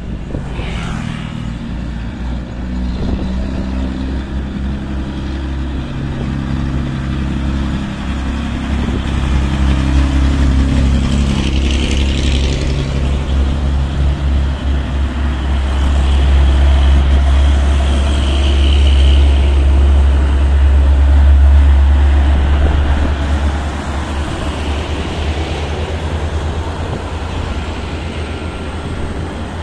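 Heavy diesel trucks climbing an incline close by, engines working under load with a deep steady rumble; the loudest pass comes about two-thirds of the way through.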